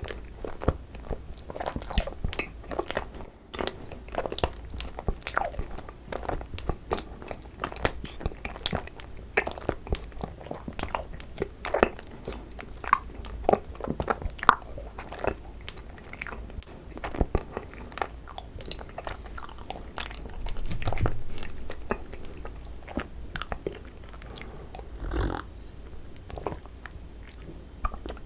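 Close-miked chewing and biting of cream cheese-filled Korean rice cake (tteok), a steady run of many short mouth clicks and smacks.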